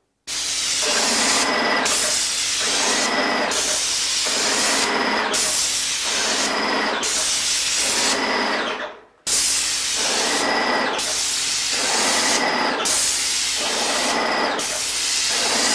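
Airless paint sprayer (Wagner 250 M piston-pump unit) spraying wall paint through the gun's tip: a loud, dense hiss that swells and dips in a regular rhythm about every two seconds. The spray cuts off briefly about nine seconds in, then starts again.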